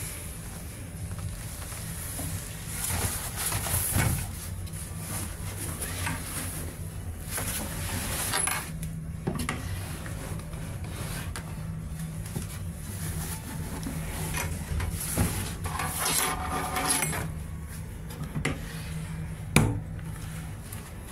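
Wooden cabin cupboard doors and drawers being handled: scattered knocks, rubbing and rattles, with one sharp click near the end. A steady low hum lies under it all.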